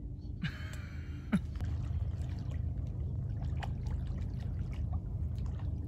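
A duck call blown briefly near the start, with a sharp click about a second and a half in, then water sloshing and splashing as a retriever dog swims out through the decoys, over a steady low rumble.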